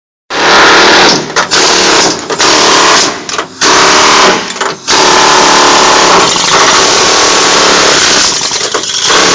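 Pneumatic air chisel hammering through the rusted sheet-steel floor pan of a car, a loud rapid rattle in bursts broken by short pauses.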